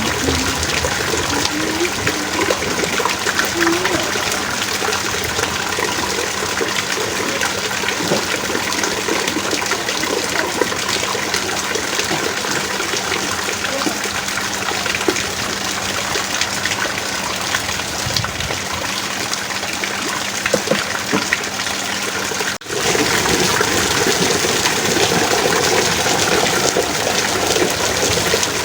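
Heavy rain pouring steadily, a dense patter of drops. It cuts out for an instant about three quarters of the way through and comes back slightly louder.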